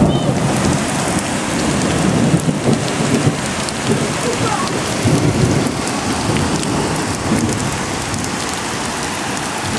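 Floodwater from a rain and hail storm running across a yard: a steady rushing hiss with irregular low rumbles.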